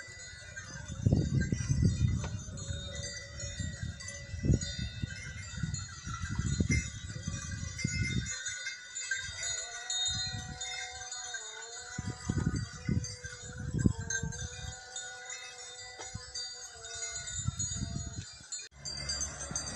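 Livestock bells ringing steadily on a grazing flock of sheep and goats, with a sheep bleating at about ten seconds in. Irregular low rumbles run underneath.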